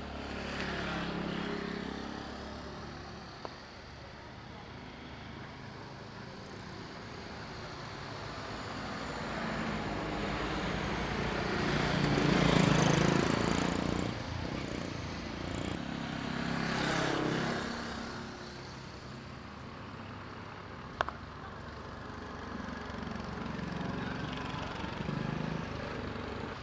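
Motor traffic passing, rising and fading in several swells and loudest about halfway through. A single sharp knock about three-quarters of the way in.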